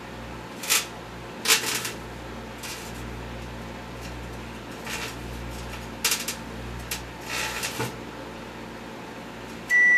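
Microwave oven running with a steady hum while the metal wire in a twist tie arcs inside it, giving irregular sharp crackling snaps every second or so. Near the end the hum cuts off and the oven's end-of-cycle beep sounds.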